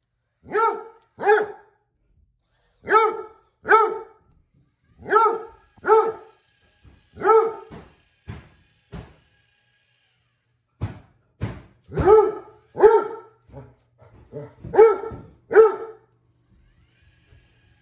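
Basset hound barking repeatedly at a robot floor mop, deep barks mostly in pairs, with a short pause about ten seconds in. A faint steady hum runs underneath in the second half.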